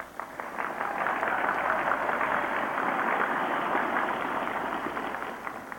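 Large outdoor crowd applauding, swelling within the first second and fading away near the end, with the thin, narrow sound of an old broadcast recording.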